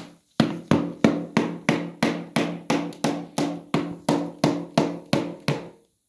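A quick, perfectly even series of about seventeen knocks, roughly three a second, each with a short pitched ring. It stops abruptly near the end.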